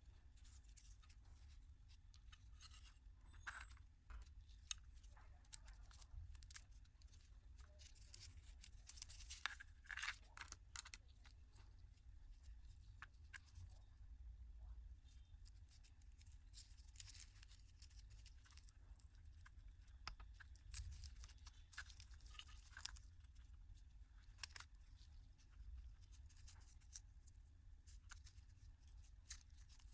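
Faint, scattered clicks, taps and scrapes of small parts being handled by hand, over a low steady hum.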